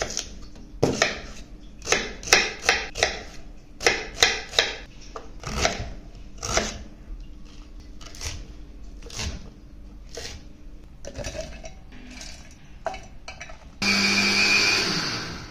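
Large kitchen knife chopping onions and green chillies on a wooden cutting board, in quick runs of sharp knocks. Near the end an electric mixer-grinder starts with a loud steady whir, grinding the onion, ginger, chilli and garlic paste without water.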